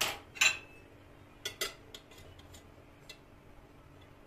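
Metal utensils clinking against a porcelain plate: two sharp clinks at the start, the second ringing briefly, two more about a second and a half in, then a few faint ticks as a cake server is worked under a slice of cake.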